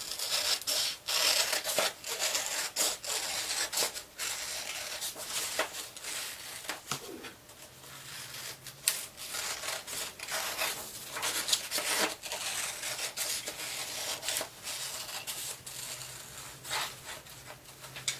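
Scissors cutting construction paper: a long run of short, irregular snips, with the paper rustling as it is handled.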